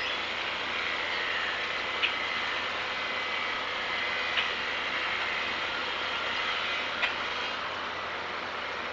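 Steady outdoor background noise with a faint, high, steady drone and a short, sharp tick three times, a couple of seconds apart. The eruption seen at the dome is not yet heard: its sound takes about 26 seconds to cover the 8 km.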